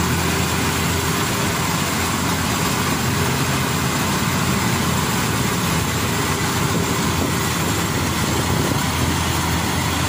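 GreenStar tracked rice combine harvester running steadily, its diesel engine and threshing machinery making a constant drone as it cuts through standing rice.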